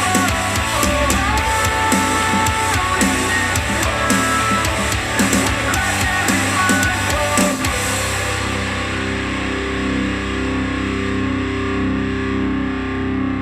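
Rock music with distorted electric guitar and drums, played back through a JBL Charge 4 Bluetooth speaker. About eight seconds in the drums stop and held chords ring on while the treble fades out, as the track winds down.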